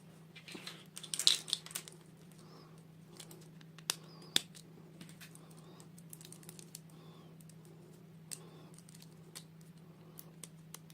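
Small plastic toy pieces and packaging being handled: scattered light clicks and taps, a burst of crinkling about a second in and two sharp clicks around four seconds in, over a steady low hum.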